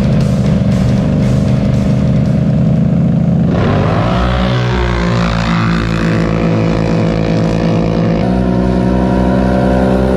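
Two Can-Am Outlander XMR ATVs with V-twin engines, a 1000 and an 850, running at the start line and then launching hard about three and a half seconds in. The engine note rises sharply as they accelerate away.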